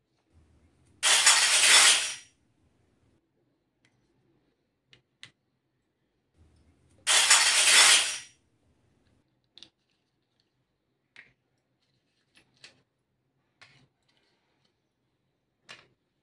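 Two loud bursts of noise, each about a second long and about six seconds apart. Between them come faint, light clicks of small plastic toy pieces being set down on plastic plates.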